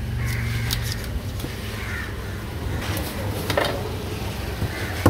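A few sharp chops and knocks of a cleaver cutting fish on a thick wooden chopping block, the loudest about three and a half seconds in, over a steady low hum.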